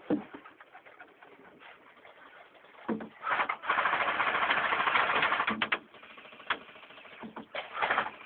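Airsoft electric guns firing: a few single clicks, then a long full-auto rattle of about two seconds in the middle, followed by shorter bursts.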